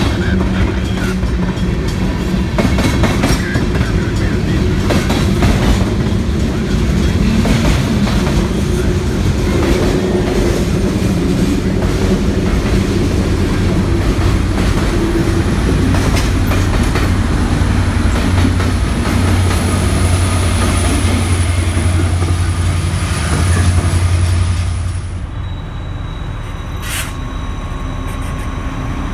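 Freight cars rolling past at close range: a steady low rumble with the wheels clacking over rail joints. About 25 seconds in it cuts to a quieter rumble as a Union Pacific diesel locomotive approaches.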